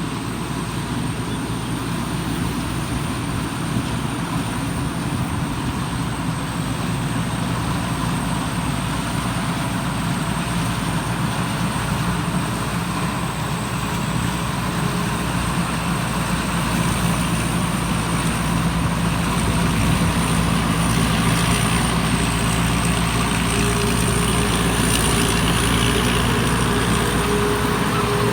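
Combine harvester's engine running steadily, with a thin high whine above it, growing gradually louder over the second half.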